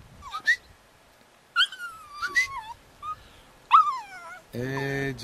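Pit bull puppy whining and crying in a string of short, high whimpers that fall in pitch. The owner reads the crying as wanting out of the wheelchair and not as pain. Near the end a lower, steady tone starts and holds.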